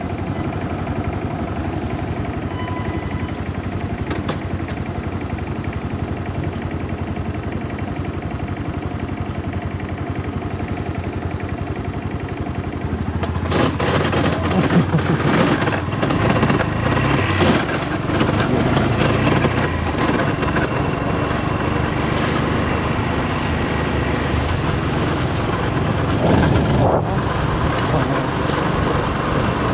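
Yamaha SRX400's air-cooled single-cylinder engine running, steady at first, then louder and rougher from about halfway through. The bike is the one the owner suspects has a blown transmission and a slipping clutch.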